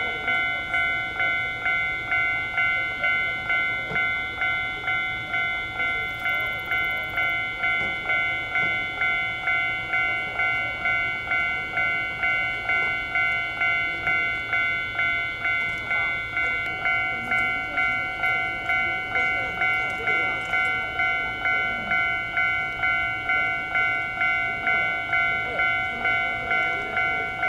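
Railway level crossing warning bell ringing without a break, a clanging pitched tone struck about three times every two seconds.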